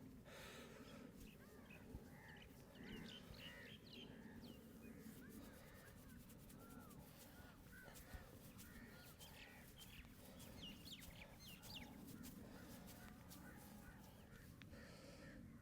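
Faint birds calling and chirping, many short calls scattered throughout, over a low steady background hum.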